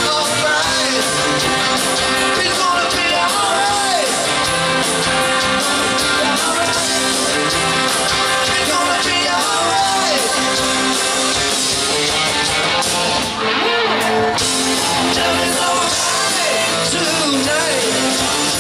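A live rock band playing at full volume, with drums, electric guitars, bass and keyboards, and sliding notes over the top.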